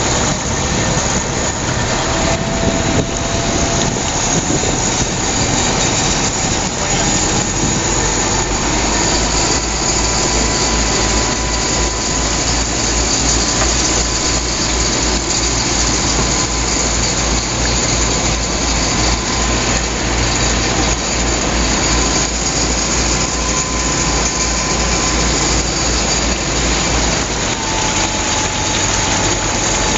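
Volkswagen Schwimmwagen Typ 166's air-cooled flat-four engine running steadily while the amphibious car is under way on water, heard from inside the car as a loud, even drone.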